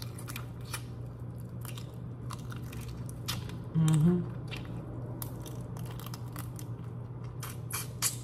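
Close-miked eating of broiled shrimp: chewing and crunching, with many small sharp clicks and crackles scattered throughout. A brief low hum of voice comes about four seconds in.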